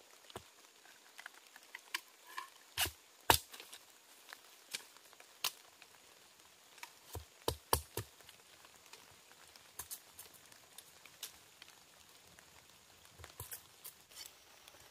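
Irregular sharp cracks and snaps of dry bamboo and twigs, some two dozen scattered through, loudest about three seconds in, with a cluster between seven and eight seconds.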